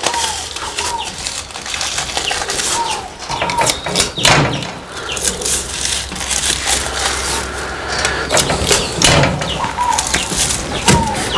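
Plastic wrapping crinkling and rustling as bars of homemade doce de leite are wrapped by hand, with short chirping calls of hens and small birds now and then in the background.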